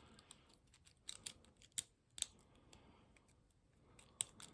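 Faint, irregular metallic clicks and ticks of a penny-teardrop lock pick probing the pin stack in a Yale padlock's keyway, some clicks coming in quick little clusters.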